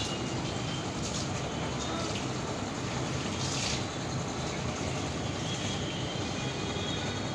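Steady rumble and hiss of city traffic, with a few short hissing bursts.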